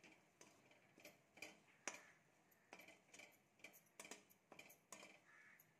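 Steel spatula clicking and scraping against a kadai as a thick fried masala with garlic and green chillies is stirred: soft, irregular ticks, several a second.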